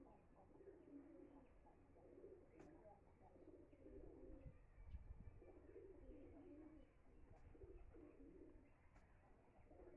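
Faint cooing of pigeons: short low coos repeated over and over.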